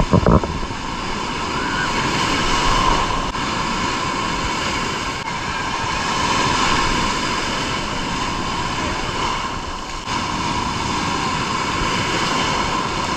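Rough sea surf breaking and washing around a wader: a steady rush of wave noise, with a short bump right at the start.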